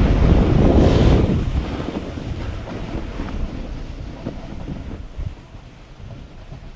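Wind buffeting a GoPro's microphone during a snowboard run: loud for the first second or so, then fading away as the rider slows to a glide.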